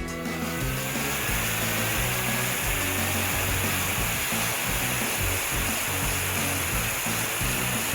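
A steady rushing hiss, a cartoon sound effect, over background music with a low bass line.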